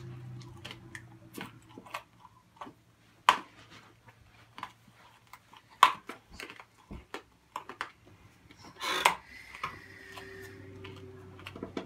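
Mouth chewing and crunching a mouthful of Warheads sour hard candies: irregular sharp crunches, with a longer noisy burst about nine seconds in.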